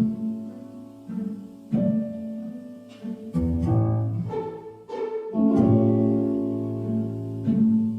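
Instrumental background music carried by low string instruments, cello and double bass, with a new note or chord about every second or two.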